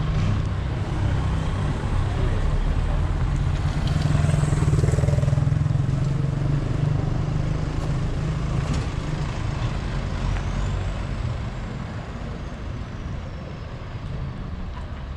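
A road vehicle's engine running, a low rumble that swells a few seconds in and then slowly fades.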